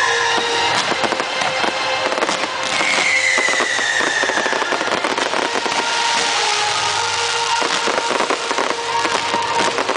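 Fireworks going off: dense crackling with many sharp pops, and a long whistle falling in pitch a few seconds in. Thin steady whistling tones run through the second half.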